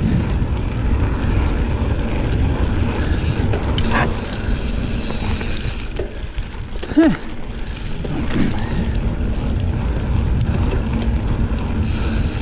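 Riding noise of a mountain bike on a dirt trail: a steady low rumble of tyres and wind on the microphone, with a few short rattles and clicks from the bike. A brief falling tone about seven seconds in.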